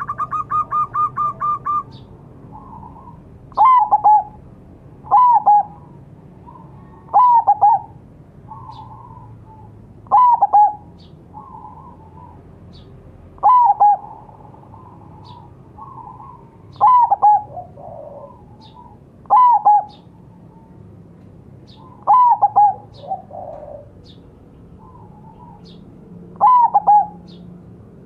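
Zebra dove (perkutut) cooing. It opens with a rapid stutter of about eight short notes, then gives a series of loud two- to three-note coos every two to four seconds, with softer coos in between.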